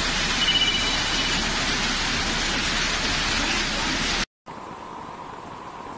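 Floodwater rushing through a street under heavy rain, a steady dense rushing hiss. About four seconds in it breaks off for a moment and resumes noticeably quieter.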